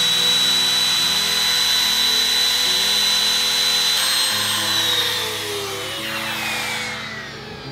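Compact trim router running at full speed on the edge of a wooden panel, a steady high whine over cutting noise. About four seconds in it is switched off and the whine falls steadily in pitch as the motor spins down.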